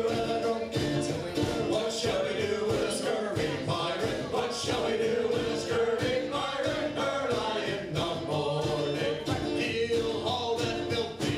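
Live band playing a song: strummed acoustic guitar, mandolin and snare drum with a steady beat, under several voices singing together.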